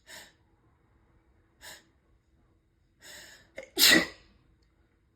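A person in a sneezing fit: two short breathy sounds, then a drawn-in breath and one loud sneeze about four seconds in.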